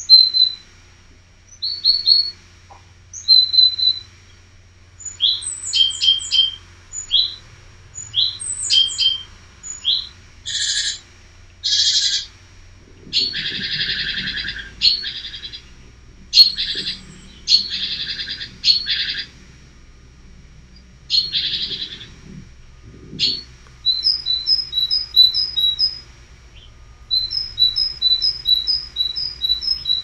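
Small songbirds calling: scattered high chirps and two-note calls, several harsher buzzy calls through the middle, then a fast repeated two-note phrase over the last several seconds.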